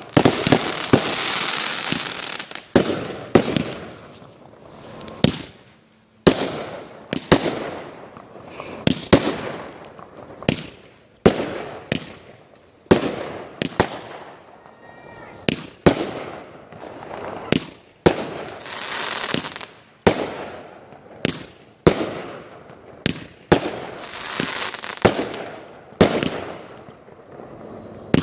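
Fireworks going off: sharp bangs about every second or two. Several bursts, near the start, about two-thirds of the way in and near the end, trail off into long crackling.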